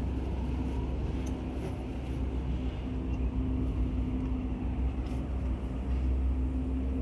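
An engine idling steadily nearby: a continuous low, even hum with no change in speed.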